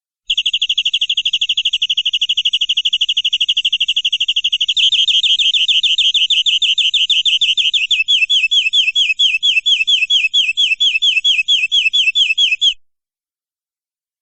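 Domestic canary singing one long trill of rapidly repeated high notes. The note changes about five seconds in, and the repeats slow to a clearly separated chirping of roughly four or five a second before cutting off suddenly near the end.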